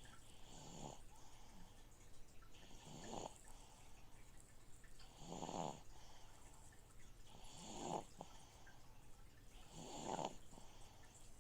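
Slow, even snoring: five snores about two and a half seconds apart, each with a breathy hiss. Under them runs the steady hum and water noise of a fish tank filter.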